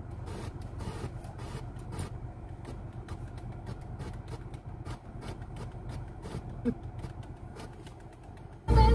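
Car stereo radio being swept by hand across the stations: static with rapid clicks and crackles and brief snatches of sound, over a steady low hum. A loud short burst comes near the end.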